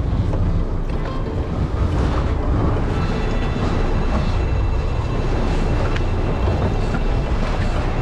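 Steady noise of a sportfishing boat under way: engine running and water rushing past the hull.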